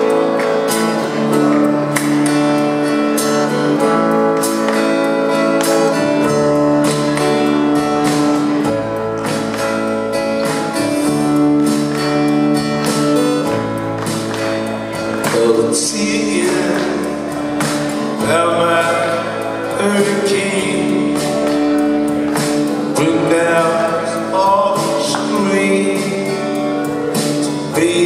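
Rock band playing live in a hall: slow electric guitar and keyboard chords over a low bass line that shifts every couple of seconds. A male lead singer's voice comes through the PA, most prominent in the second half.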